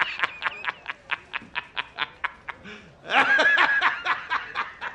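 A man laughing hard in rapid, rhythmic bursts, about five a second, with a louder, fuller stretch of laughter about three seconds in.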